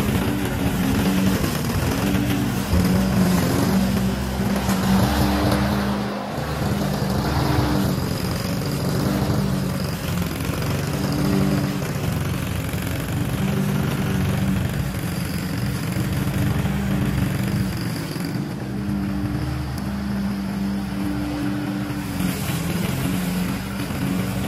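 Honda walk-behind lawn mower's single-cylinder four-stroke engine running steadily under load as it cuts through tall, overgrown grass.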